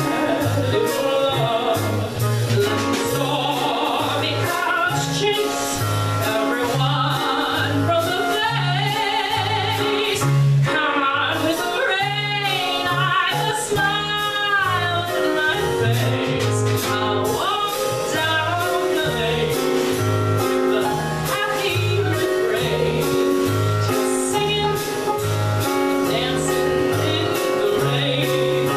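A woman singing a show tune into a microphone, backed by a live band of piano, bass and drums. Near the middle she holds long, wavering notes.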